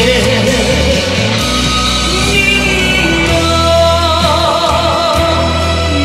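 A male singer sings a Korean trot song live into a handheld microphone over a backing track. From about three seconds in he holds notes with vibrato over a steady bass line.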